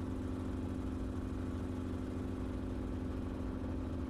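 Enstrom helicopter in flight: engine and rotor running steadily, a constant drone with a strong hum and a rapid low beating from the blades.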